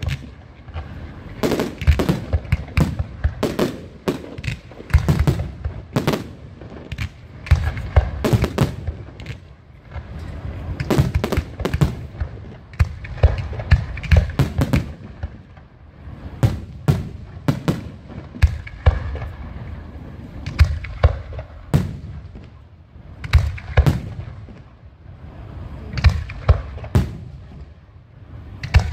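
Fireworks going off in an irregular series of sharp bangs and cracks, bunched in clusters every second or two, each followed by a low rumbling echo.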